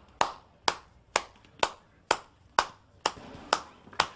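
One person's slow, steady handclap, about two claps a second.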